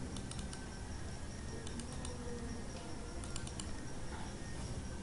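Computer mouse clicking in three short bursts of quick clicks, over a steady low hum from the recording.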